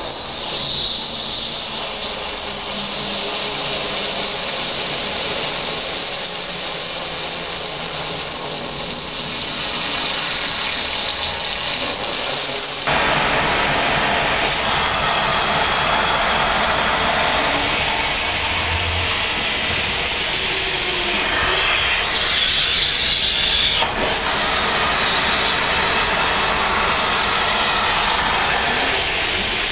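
Compressed-air vacuum cleaner (AO110/120) running with a loud, steady rush of air. About 13 seconds in the sound abruptly turns fuller and deeper, then holds steady.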